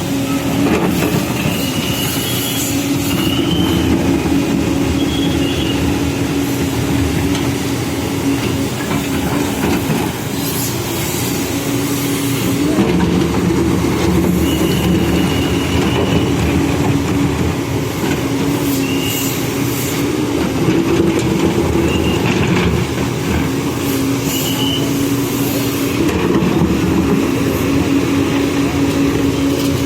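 Backhoe loader's diesel engine running steadily, with short high squeals now and then.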